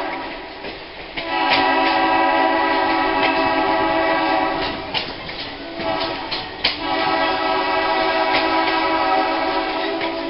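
An Alco S1 diesel switcher's horn blowing long blasts, breaking off briefly about a second in and again around five to six and a half seconds in, while the train runs, with scattered clicks from the wheels on the rail.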